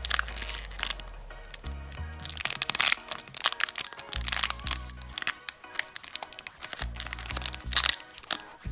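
Foil wrapper of a Pokémon card booster pack crinkling and crackling as it is worked open by hand, over background music with a stepping bass line.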